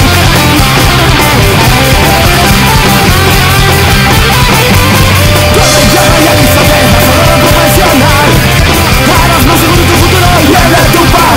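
Loud punk rock music with distorted electric guitars and a fast drum beat.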